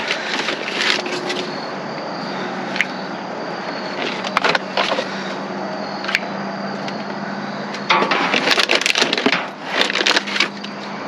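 Rummaging through discarded packaged food in a dumpster: scattered knocks, clicks and rustles of cans and packages being handled, busiest near the end, over a steady low hum.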